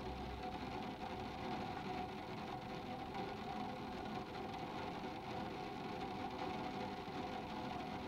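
Light rain falling on a skylight's glass pane: a steady, even patter of drops, with a steady hum underneath.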